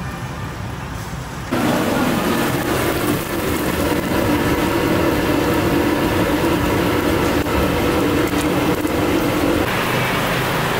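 Puri deep-frying in a kadai of hot oil: a loud, steady sizzle that starts abruptly about a second and a half in, after quieter room noise, and eases near the end.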